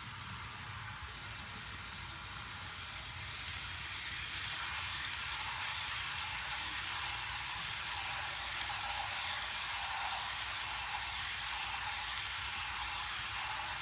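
Steady hiss from a running model train, getting louder about four seconds in.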